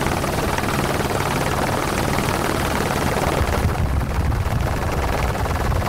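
Helicopter in steady flight: an even, low rotor drone under a constant rushing noise.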